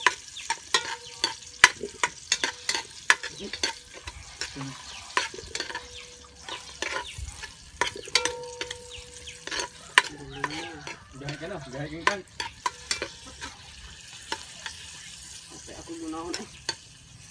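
Metal ladle stirring and scraping in a metal cooking pot, giving frequent sharp clicks and knocks, while ginger and chili sizzle in hot oil.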